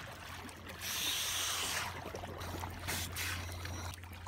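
Seawater splashing and churning around a scuba diver at the surface as he sinks under beside the boat, with a loud rush of splashing about a second in and a shorter one near three seconds. A steady low hum runs underneath.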